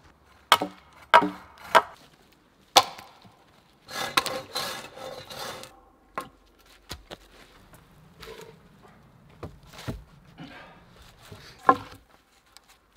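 Thin pine poles knocking and clattering against each other as they are handled, with several sharp knocks in the first three seconds and another near the end, and a scraping rustle of wood on wood about four seconds in.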